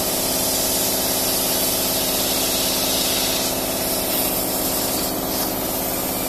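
Philicam FLDM1325 150 W CO2 laser cutting machine running while it cuts wood: a steady hiss of blowing air over a steady mechanical hum.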